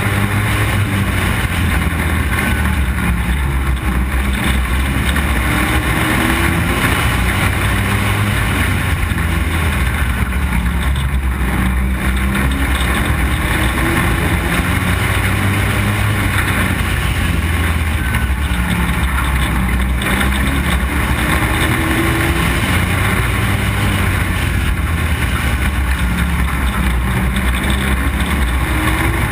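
Street stock race car engine running hard under racing load, heard on board with steady wind and road noise. Its pitch rises and eases again in a repeating cycle, lap after lap, as the car drives down the straights and through the turns.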